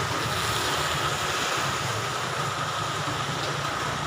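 Heavy rain pouring down in a steady, even hiss, with a faint steady high tone running through it.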